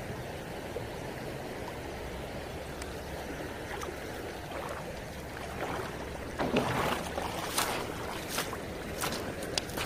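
River water running steadily. About two-thirds of the way in, footsteps start crunching on a gravel-and-pebble bank, several sharp steps at a walking pace.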